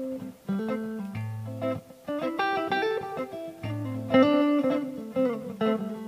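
1982 Made-in-Japan Tokai Silver Star Stratocaster-style electric guitar played with a clean tone, a picked phrase of chords and single notes over a low bass note that comes back about every two and a half seconds.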